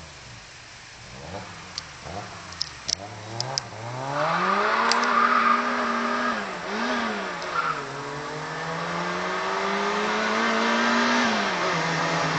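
Supercharged four-cylinder engine of a VW Golf 2 G60: a few short revs, then it pulls hard with the pitch climbing, dips at a gear change and climbs again, falling off near the end. A few sharp clicks come before the pull.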